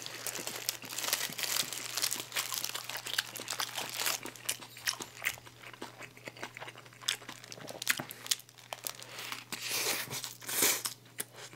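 A person eating a burger: chewing and biting with wet mouth clicks, while the burger's paper wrapper crinkles in the hands.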